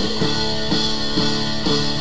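Rock music with guitar and drums, chords changing in a steady rhythm.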